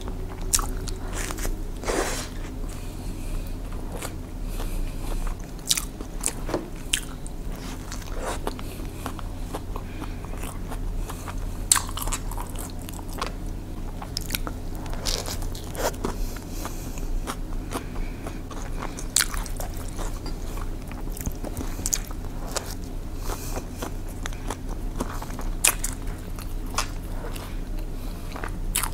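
Close-up chewing and biting of a lettuce-filled sandwich, with irregular crisp crunches of lettuce and bread, over a steady low hum.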